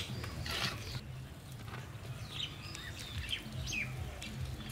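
Wet chewing and mouth noises of a man eating a big mouthful of rice by hand, with small birds chirping in the background.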